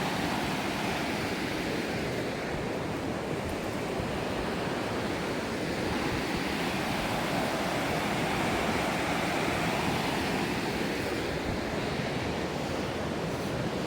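Steady, even rushing noise with no distinct events, rising slightly in level around the middle.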